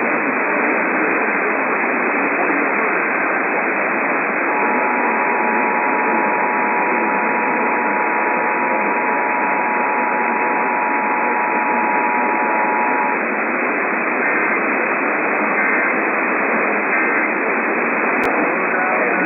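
Emergency Alert System test received over a weak radio signal buried in heavy static hiss. About four seconds in, the EAS two-tone attention signal starts and holds steady for about nine seconds. Three short chirps of SAME digital data follow about a second apart.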